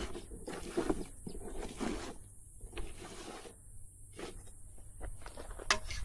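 Intermittent scraping and rustling of a metal detector's search coil and hands working dry, crumbly dirt, with a sharp click near the end.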